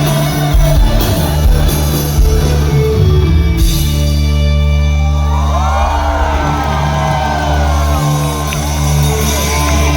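Live rock band playing loud in a concert hall; about three and a half seconds in, the full sound drops away to a held low chord. Over it, voices shout and whoop in rising and falling glides.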